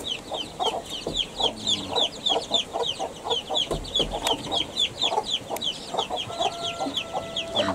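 Young pakoy chicks peeping without a break: short, high, falling peeps, several a second, with lower clucking underneath.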